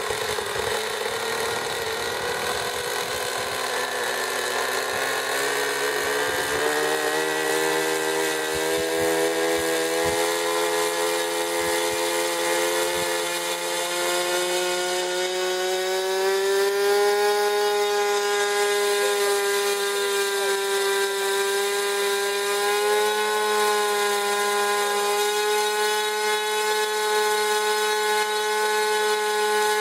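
Small model-airplane engine running on the bench, its pitch climbing slowly over about ten seconds, then holding steady at high revs.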